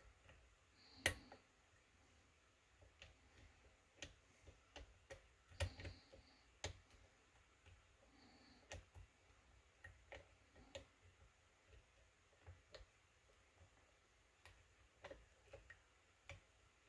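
Faint, irregular clicks and ticks of a lock pick working the pins of a pin-tumbler kik cylinder, with a louder click about a second in and another near six seconds.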